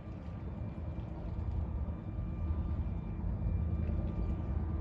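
Low, steady rumble of the lake freighter John J. Boland passing under way, with a faint steady hum above it.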